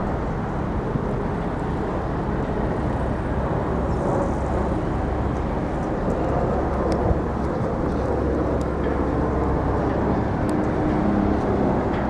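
Steady outdoor city noise: a continuous rumble of traffic with no single sound standing out.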